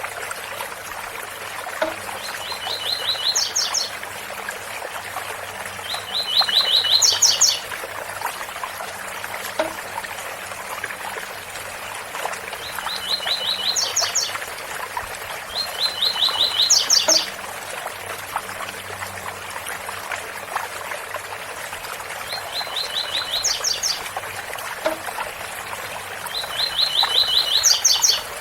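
Double-collared seedeater (coleiro) singing the 'tui-tui' song: six short phrases in pairs, each a quick run of repeated notes ending in a few higher notes. Steady waterfall noise runs underneath.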